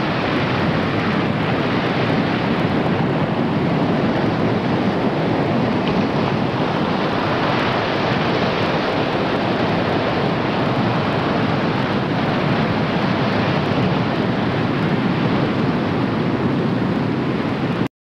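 Surf washing in and breaking on a beach as a steady, dense rush of water. It cuts off suddenly near the end.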